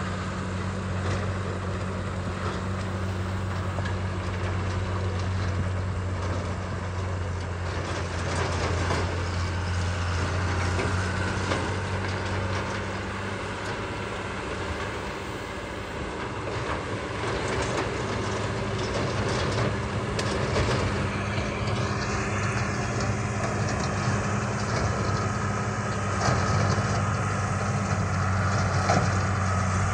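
Tractor engine running steadily under load, pulling a rotary cutter (bush hog) through field growth, with the cutter's rushing noise and scattered clicks and knocks from material being hit.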